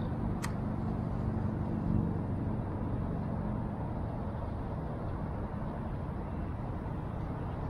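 A vehicle engine running, its low hum fading away over the first few seconds and leaving a steady low rumble; a single sharp click about half a second in.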